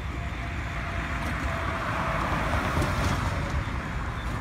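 Road traffic noise from a car approaching along the road, swelling for a couple of seconds in the middle, over a steady low rumble of wind on a phone's microphone.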